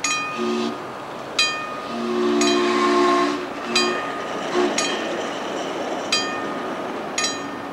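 Chime steam whistle of a miniature live-steam locomotive sounding a three-note chord in several blasts, one long blast in the middle and short ones around it. A bell rings with single strikes roughly every second throughout.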